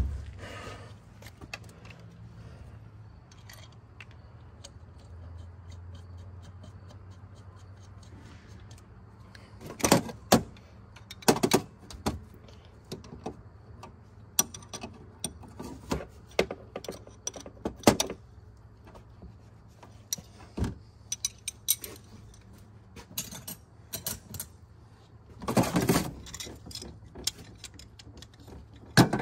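Intermittent metallic clinks and clatter of hand tools and small furnace parts being handled, with louder rattling bursts about ten, eleven and a half and twenty-six seconds in, over a faint low hum.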